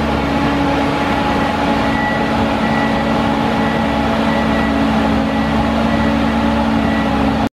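Sandvik DX680 drill rig's Caterpillar C7 inline-six diesel engine idling steadily, with a faint high whine above the engine note.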